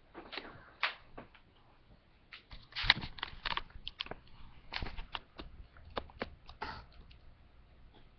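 Cat snoring, heard as a string of short, irregular clicks and brief noisy breaths, the loudest about three seconds in.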